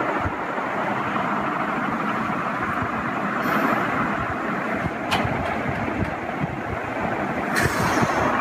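Steady rushing background noise with a single sharp click about five seconds in.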